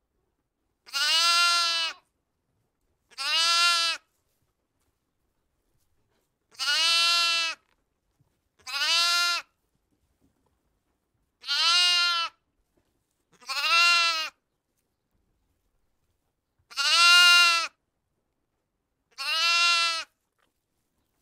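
Bleating: eight pitched calls, each under a second with a pitch that rises and falls, coming in four pairs with silence between them.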